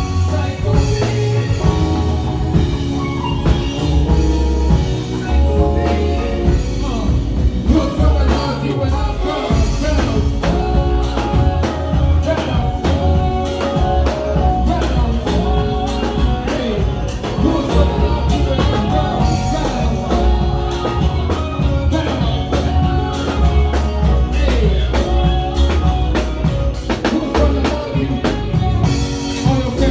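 A song with a heavy bass line, a steady drum beat and a singing voice.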